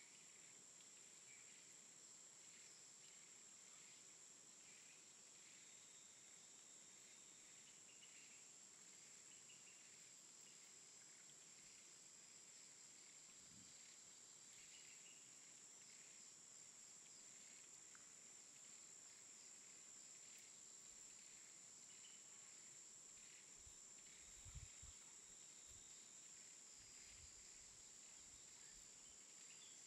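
Near silence: a faint steady high-pitched hiss, with a couple of soft low thumps about 24 seconds in.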